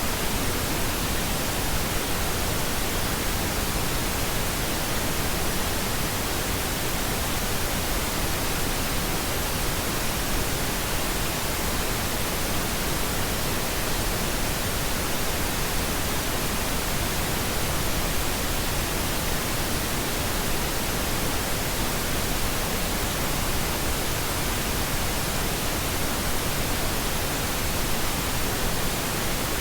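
Steady pink noise: an even, constant hiss with no changes.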